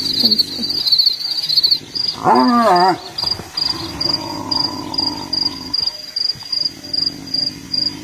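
Spotted hyena giving a loud call with a fast-wavering pitch about two seconds in, lasting about a second, followed by a lower, drawn-out call. Crickets trill in short, even pulses throughout and stop at the end.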